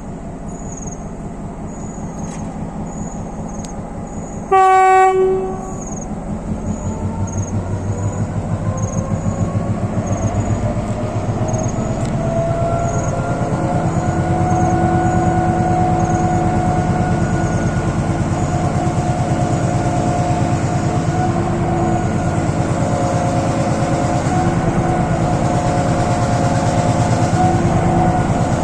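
Class M6 diesel-electric locomotive's engine running with a rapid pulsing exhaust, and one short loud horn blast about five seconds in. The engine then throttles up, its pitch rising over several seconds, and runs hard and steady under load.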